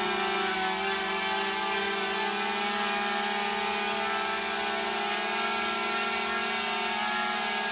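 DJI Mavic Mini quadcopter's four propellers and motors running in a hover, a steady buzzing whine of several held tones that does not change in pitch.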